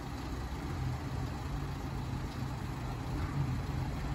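Low, steady diesel engine rumble of an approaching Class 170 Turbostar diesel multiple unit, growing slightly louder.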